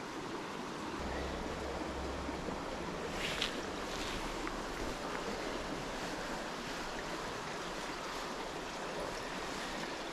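River water rushing steadily: an even, unbroken rush.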